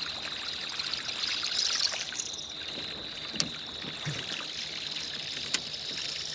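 Water trickling and lapping along a small boat's hull under a steady high insect trill, with two sharp clicks, one about halfway through and one near the end.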